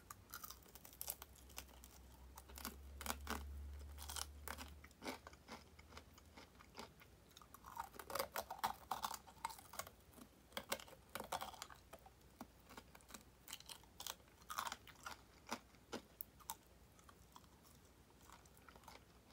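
Close chewing and crunching of fried chicken tulip drumettes: teeth biting into crisp fried coating and nibbling meat off the bone, in irregular crunches that thin out near the end.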